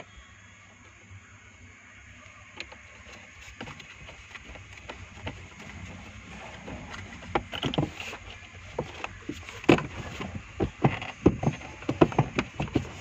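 Irregular knocks and clunks of hard parts being handled, sparse at first and growing busier from about seven seconds in.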